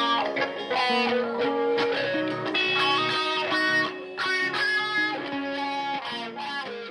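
Solid-body electric guitar played in quick runs of picked notes, the level dropping away near the end.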